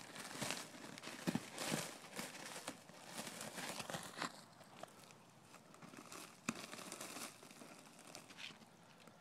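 Basset hound's paws crunching in a thin layer of snow, in irregular steps that come thick and fast for the first few seconds and then thin out to a few scattered crunches.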